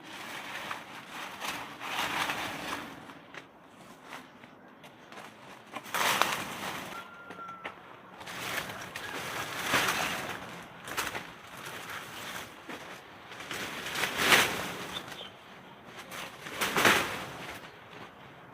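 Repeated rustling swishes, about five of them a few seconds apart, each lasting under a second, from dry material being handled, with a short faint chirp-like tone between the second and third.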